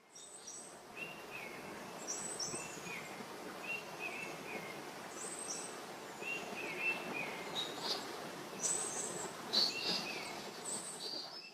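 Outdoor ambience of birds chirping over a steady noisy background: short calls in little falling steps, repeating every second or two, with higher, sharper chirps mixed in.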